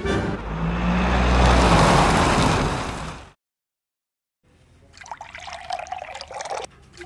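A loud rushing swell cuts off abruptly. After a second of silence comes a stream of milky tea poured from a height into a metal pan, splashing in two pours of about a second and a half each.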